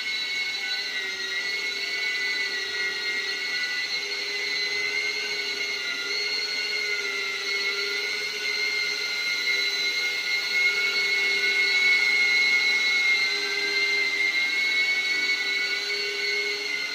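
Happymodel Cine8 cinewhoop's motors spinning Gemfan D51 five-blade ducted propellers: a steady high whine whose pitch wavers slightly, getting a little louder a little past halfway.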